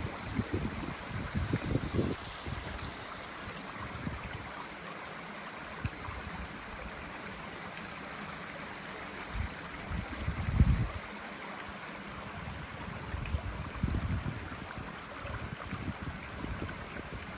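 Forest ambience: a steady rushing hiss of moving air or water, with low gusts of wind buffeting the microphone at the start, about ten seconds in and again near fourteen seconds.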